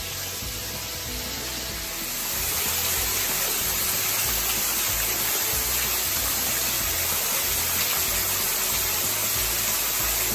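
Steady rushing splash of a small waterfall fed by snowmelt, falling off a rock ledge; it grows louder about two seconds in and then holds even. Faint background music sits underneath.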